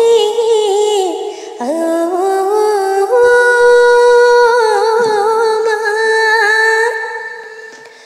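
A woman humming a wordless, ornamented melody in long held notes, with a brief break about a second and a half in, fading out near the end.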